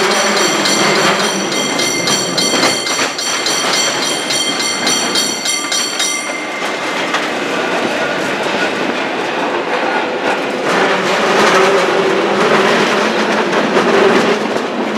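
San Francisco cable car running along its track, a steady rumble with a clatter of rattles and clicks. A high steady whine sounds over it for about the first six seconds, then stops abruptly.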